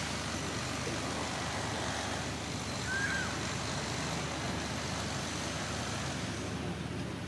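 Steady outdoor background noise, with one brief high chirp about three seconds in.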